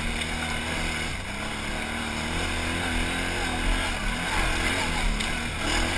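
Can-Am Outlander XMR 1000 ATV's V-twin engine running under load on a steep rocky climb, its pitch wavering with the throttle a few seconds in.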